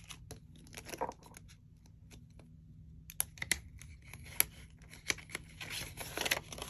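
Paper banknotes rustling and a clear plastic cash envelope crinkling as bills are handled and pulled from it, heard as scattered light clicks and rustles, busiest from about five and a half to six and a half seconds in.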